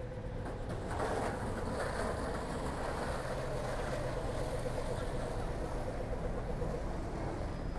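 A city bus running close by, its engine giving a steady hum over the low rumble of street traffic.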